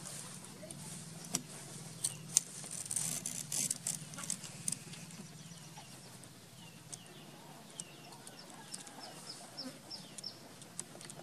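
Scattered clicks and crackles of dry twigs and bamboo being handled and gnawed by a baby monkey, over a steady low hum. From about six seconds in, a run of short high chirps, each falling in pitch, repeats about twice a second.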